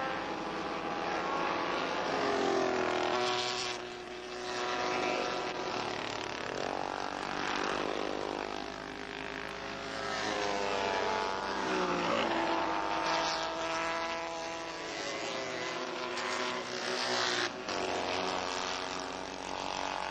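Several classic racing motorcycles passing one after another through a set of bends, their engine notes overlapping and repeatedly rising and falling in pitch as the riders rev up and back off.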